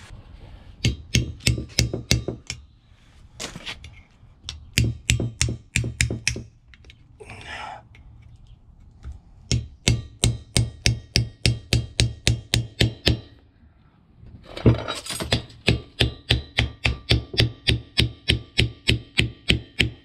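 Runs of rapid hammer blows on steel, about four to five a second with a faint metallic ring, knocking out the back seal of a heavy truck's rear wheel hub.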